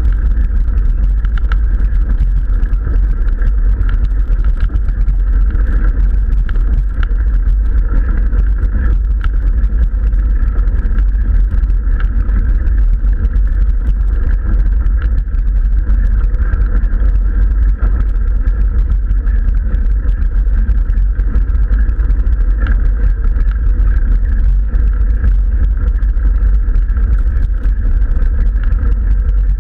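Steady, loud, low rumble from a camera mounted on a mountain bike riding up a gravel track: wind and riding vibration on the camera's microphone.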